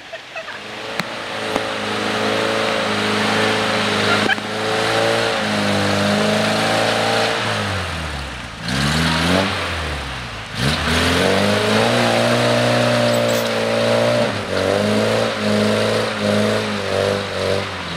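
Toyota pickup trail truck's engine revving hard at high rpm as the truck churns through deep mud. About eight seconds in the revs fall sharply and climb again, and near the end they rise and fall in quick pulses of about two or three a second.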